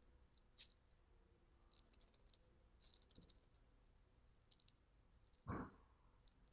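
Faint, scattered computer mouse clicks over near silence, with one short soft thump about five and a half seconds in.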